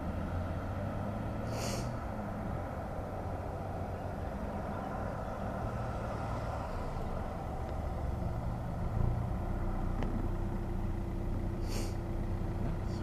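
Road traffic at a standstill and pulling away: car engines running with a steady low rumble. There are two brief hisses, one about two seconds in and one near the end. Near the end a car engine hums close by as it comes alongside.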